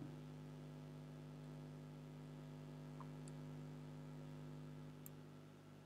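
Low steady electrical hum, with a few faint clicks about three seconds in and again near the end.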